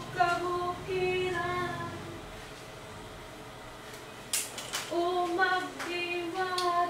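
A high-pitched voice singing a melody, pausing for about two seconds midway and then singing again, with a couple of sharp clicks just before it resumes.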